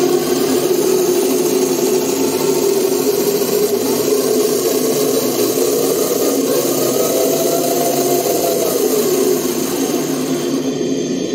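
Jet-turbine-style engine sound effect playing steadily through a small loudspeaker, with a slight rise and fall in pitch partway through; it eases off shortly before the end.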